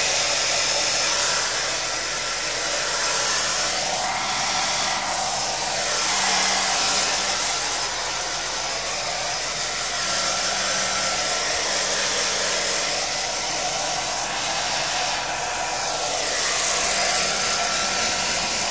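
Hand-held hair dryer running continuously, blowing a dog's wet coat dry: a steady rush of air over a faint motor hum, its tone sweeping slowly a few times.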